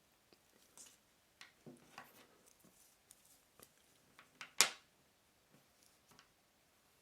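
Light handling noises of watches on nylon straps: scattered soft taps and rustles, with one sharper click about four and a half seconds in.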